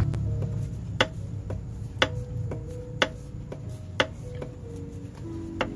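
Suzuki K6A engine's crankshaft being shoved back and forth by hand, knocking sharply about once a second with softer knocks in between. This is the sign of excess crankshaft end play from worn thrust washers.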